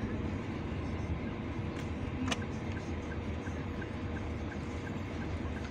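Steady engine and road rumble inside a moving car. A sharp click comes a little over two seconds in, followed by a light, even ticking of about three ticks a second.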